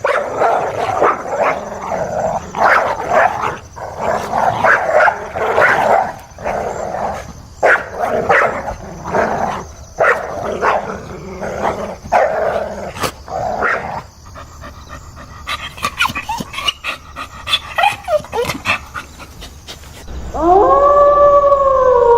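A dog barking over and over in quick succession, then, after a quieter stretch with faint whines, a long howl starting near the end that rises and then holds steady.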